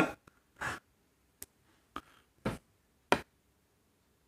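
Small parts of a Caterpillar C15 intake actuator being handled: a handful of short, separate clicks and taps, about one every half second to second.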